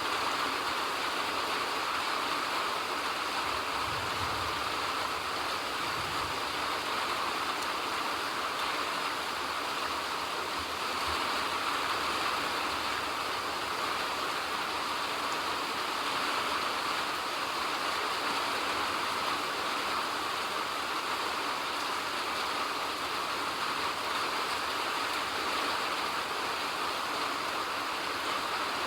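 Steady rain falling, a constant even hiss with no let-up, and a few faint low rumbles in the first half.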